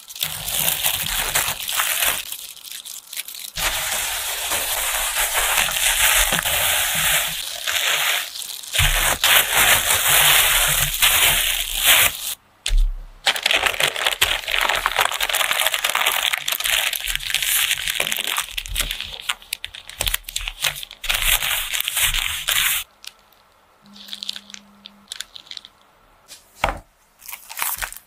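Greaseproof paper crinkling and rustling as a rice roll is wrapped up in it, in long stretches with short breaks. It stops about twenty-three seconds in, leaving only faint scattered taps and clicks.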